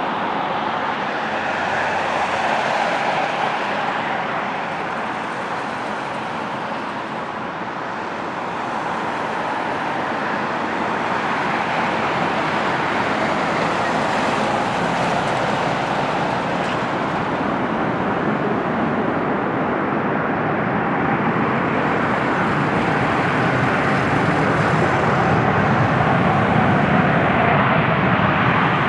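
Steady rumble of a jet airliner on approach for landing, slowly growing louder over the whole stretch, mixed with the noise of passing road traffic.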